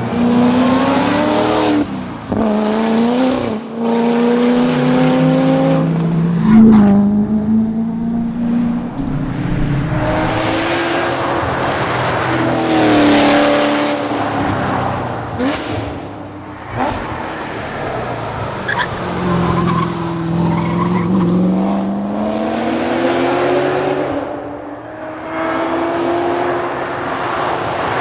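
Chevrolet Corvette Z06's V8 driven hard. Its pitch climbs and drops sharply at each gearshift, and falls and rises again through braking and corners.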